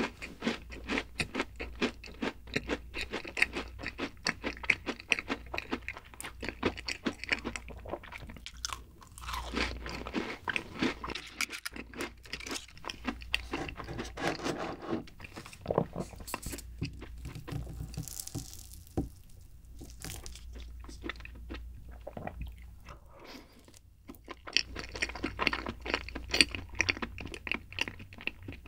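Close-miked eating sounds: a macaron bitten and chewed with crisp crunching, then a spoonful of chocolate dessert chewed. The crunching is densest in the first half and again near the end, with softer, quieter chewing in between.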